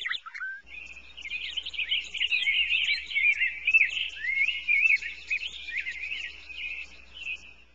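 Many small birds chirping together in a dense chorus of quick rising and falling chirps, fading out near the end.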